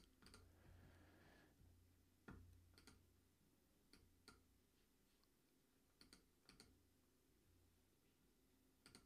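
Near silence with faint computer mouse clicks: a few single and paired clicks spaced a second or so apart.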